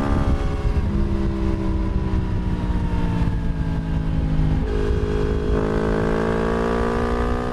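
Yamaha MT-10's crossplane inline-four running through an Akrapovič slip-on exhaust while riding: the revs ease down gradually for about four and a half seconds, jump up suddenly, then climb slowly.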